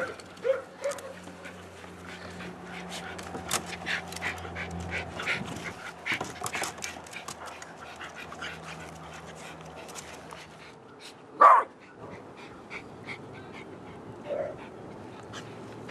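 Dogs playing together, with scattered clicks and rustles and one loud, short bark about eleven and a half seconds in.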